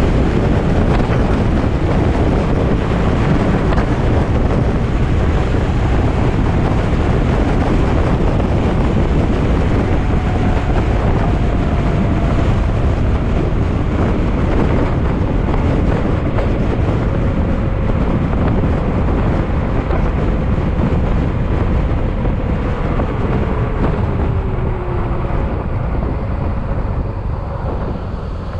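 Yamaha XMAX scooter riding at road speed: a steady rush of wind on the microphone mixed with the single-cylinder engine. Over the second half the engine note slowly falls and the noise eases off near the end as the scooter slows.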